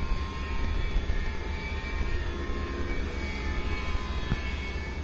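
Twin propellers of a radio-controlled foam-board flying disk running overhead at a distance: a steady high-pitched whine. A heavy low rumble of wind on the microphone runs underneath.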